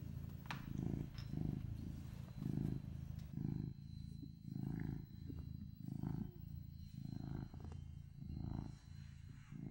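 Cat purring close up: a low, steady purr that swells and fades with each breath in and out, about three swells every two seconds.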